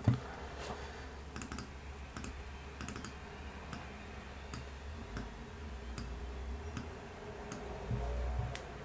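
Computer mouse clicks and keyboard keystrokes while editing in animation software: scattered sharp clicks, roughly one every half second to second, over a faint low hum.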